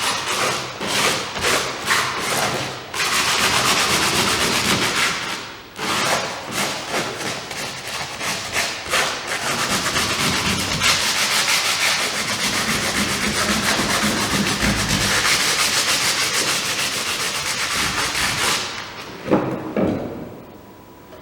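Sandpaper rubbed by hand over the cured fibreglass top coat of a GRP roof in quick back-and-forth strokes, a rasping scratch that stops near the end, followed by a couple of light knocks.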